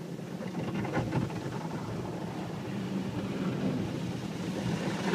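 Automatic car wash spraying water over the car, heard from inside the cabin as a rushing noise that grows steadily louder.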